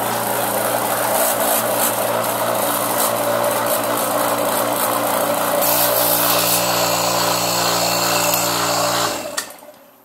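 A 7 CFM refrigeration vacuum pump running, noisy, with a steady motor hum and a loud hiss. It is switched off about nine seconds in and winds down.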